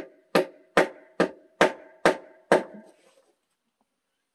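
Wooden mallet striking the base of a natural log post standing on a stone footing: seven sharp knocks about two a second, each with a short woody ring, ending about three seconds in.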